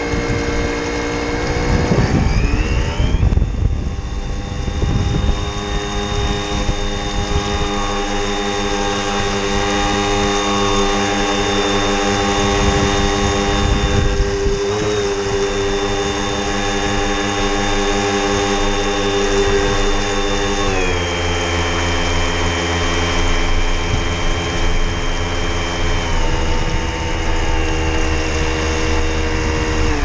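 Electric drive motor of a model RAF 206 seaplane tender whining at speed, heard from on board over the rush of water and wind. Its pitch rises about two seconds in as it speeds up, holds steady, then steps down twice in the last ten seconds.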